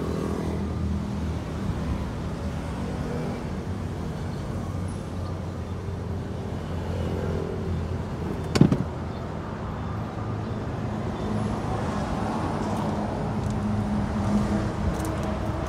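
A steady low engine hum, with a single sharp knock a little past halfway.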